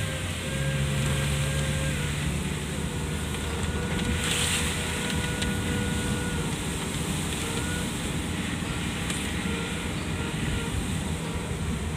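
Inside a car driving on a wet road in the rain: steady engine hum and tyre hiss on wet asphalt, with rain on the windscreen and the wipers sweeping. A brief swish stands out about four and a half seconds in.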